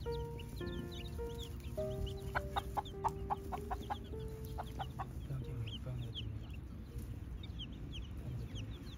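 Chicks peeping continually in short, high, falling chirps, while a black hen gives a quick run of clucks from about two to five seconds in.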